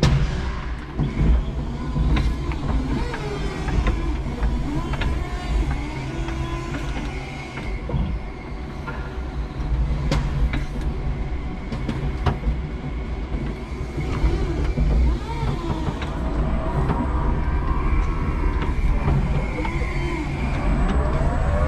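Electric motors of a 5-ton electric forklift whining, rising and falling in pitch over a steady low hum as it works and drives, with a few sharp clicks and knocks.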